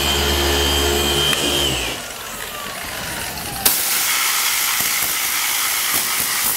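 A handheld power tool running steadily, then switched off and winding down about two seconds in. A little over three and a half seconds in, a sharp click is followed by a steady loud hiss.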